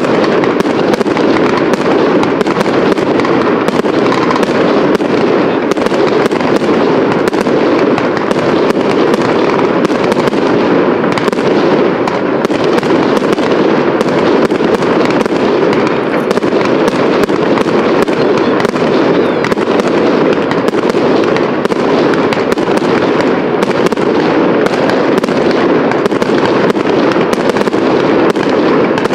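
Fireworks display: a continuous, dense crackle crowded with rapid sharp bangs from bursting aerial shells, with no let-up.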